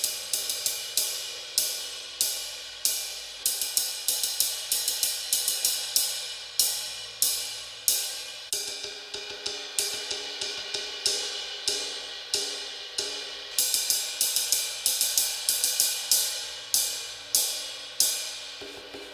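A drumstick playing a steady pattern on a cymbal, for a side-by-side test of the cymbal open and muffled by a face mask laid on it. The cymbal's tone changes about eight seconds in.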